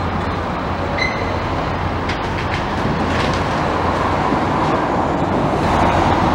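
Heavy demolition machinery running steadily under a constant low hum, with a few faint metallic ticks.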